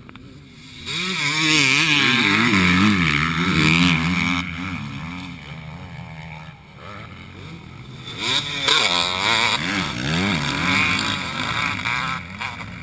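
Motocross bikes racing past close by, engines revving up and down. One pass comes about a second in and another around eight seconds.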